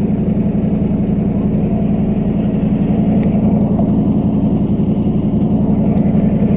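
A heavy vehicle's engine idling steadily, with an even, fast firing pulse and no change in pitch.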